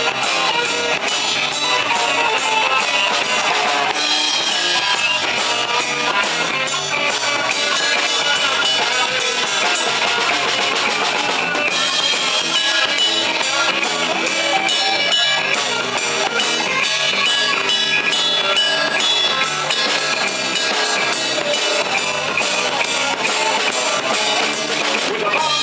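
Instrumental passage of a rock song: guitar over a drum kit keeping a steady beat, with no singing.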